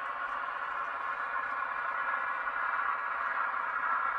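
Sound decoder of an N gauge Graham Farish Class 55 Deltic model playing its twin Napier Deltic diesel engine sound through twin small speakers, a steady running drone.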